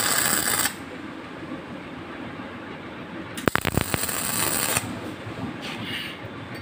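Electric arc welding on stainless steel tube: two short tack welds, each starting with a few sharp clicks and then a steady crackling hiss. The first ends under a second in; the second starts about three and a half seconds in and lasts just over a second.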